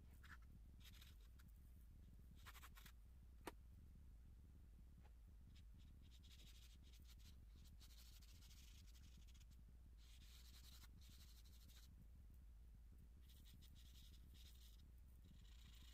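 Faint scratching of a pencil on drawing paper, coming in stretches of strokes, over a low steady hum. A single sharp click comes about three and a half seconds in.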